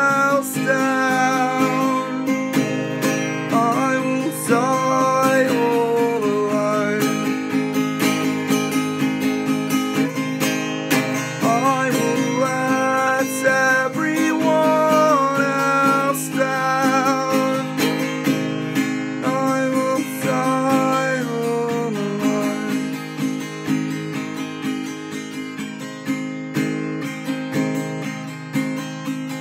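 Acoustic guitar music, strummed chords under a gliding melody line. The melody drops out about twenty-two seconds in and the playing grows quieter.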